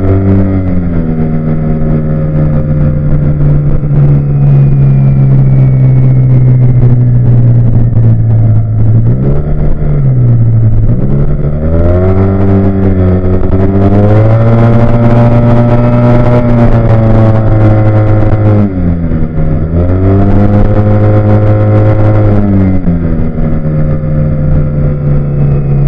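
Supercharged car engine running under load, its pitch steady, then dipping and climbing again about nine seconds in, rising to a higher steady pitch around fourteen seconds, dipping and climbing again near nineteen seconds, and falling back lower for the last few seconds.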